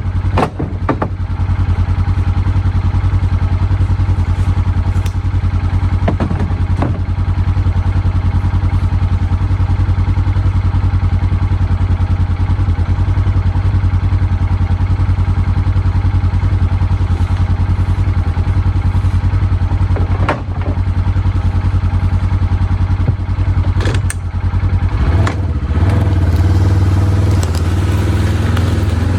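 Gas chainsaw running steadily under load while cutting into a maple trunk, with a few sharp knocks; the engine note rises and gets louder about 25 seconds in.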